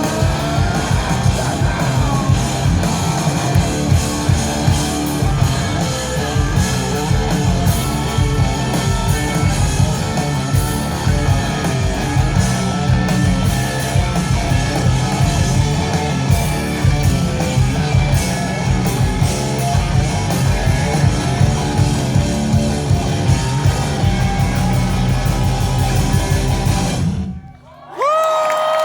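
Live rock band playing loud electric guitars and drums, with singing. The music cuts off sharply near the end, and a whistle-like tone rises and then holds.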